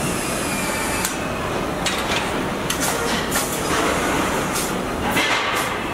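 Car body assembly line machinery: a steady factory din, with frequent short, sharp sounds over it.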